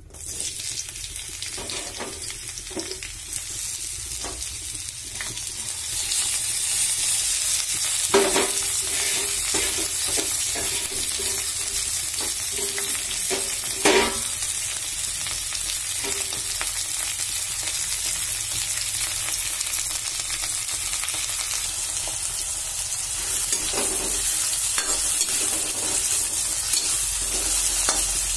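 Sliced onions and green chillies frying in hot oil in a metal kadai, stirred with a spatula: a steady sizzling hiss that gets louder about six seconds in. A few sharp knocks cut through it, the loudest about eight and fourteen seconds in.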